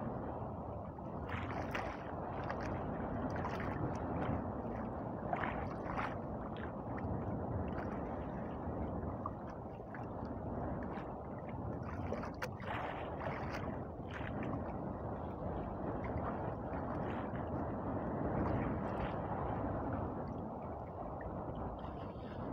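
Sea water lapping and sloshing against the hull of a small boat in a steady wash, with a few light knocks now and then.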